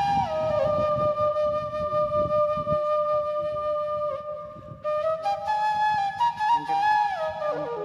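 Background music: a slow melody of long held notes that bend and slide between pitches, breaking off briefly about four seconds in.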